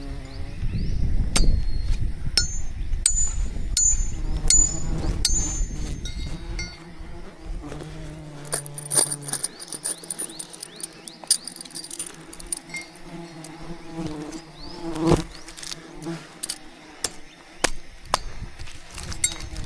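Wild bees buzzing in a steady hum around their hive, with sharp clicks and knocks throughout. A low rumble runs under it for the first several seconds.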